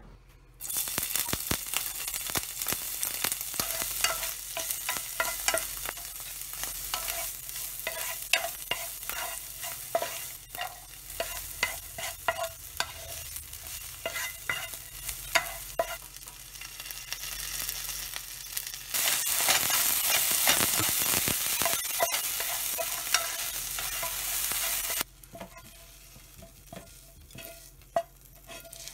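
Chopped snail meat, garlic and green onion sizzling in hot oil in a nonstick frying pan, stirred with a wooden spatula that scrapes and taps the pan. The sizzle starts suddenly just after the start as the food goes into the oil, grows louder for several seconds after the midpoint, then stops abruptly, leaving quieter scraping near the end.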